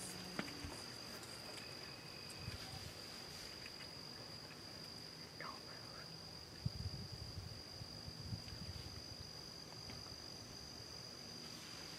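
Insects droning steadily on one high unbroken tone. A cluster of soft low thumps comes about two-thirds of the way through.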